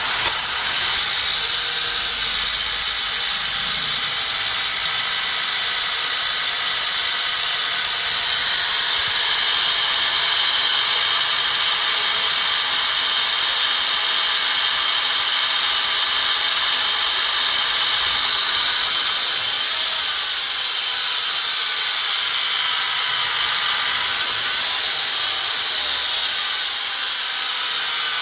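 BMW N42 four-cylinder petrol engine running, with a loud, steady, high-pitched hissing whine from around the intake manifold. The owner traced the noise to a worn internal bearing in the alternator.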